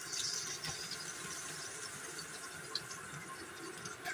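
Cooking oil sizzling in a non-stick frying pan: a steady hiss, loudest in the first second after the oil goes in.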